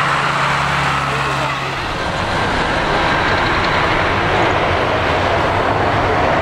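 Boeing 737-800's twin CFM56-7B turbofans at takeoff thrust during the takeoff roll, a loud, steady jet engine noise. A low hum underneath stops about two seconds in.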